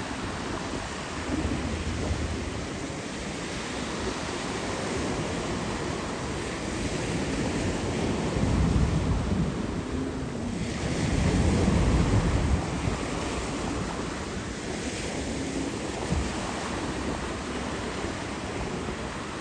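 Wind buffeting the microphone over rushing water and surf, as if from a moving jet ski. The rumble swells heavily twice near the middle.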